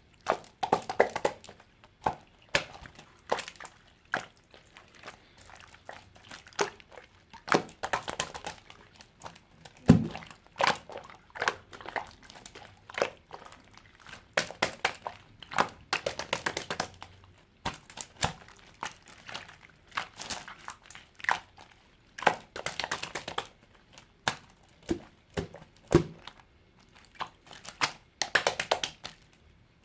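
Clear slime being squished and pressed by hand, giving irregular sticky pops and crackles as air pockets burst.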